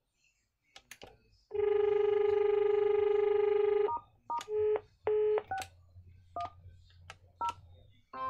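Panasonic KX-T2727BS telephone on hands-free: a button click, then a steady dial tone through its loudspeaker for about two and a half seconds, then several short touch-tone dialing beeps, each with a key click, as number keys are pressed.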